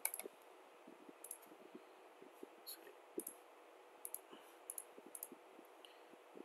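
Computer mouse clicking: scattered single clicks at irregular intervals, a few in quick succession at the start, over faint steady room hiss.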